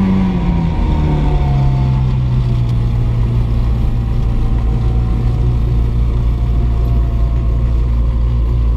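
Mosquito helicopter's turbine engine running loud and steady; its pitch falls over the first second or two, then holds level with a deep hum underneath.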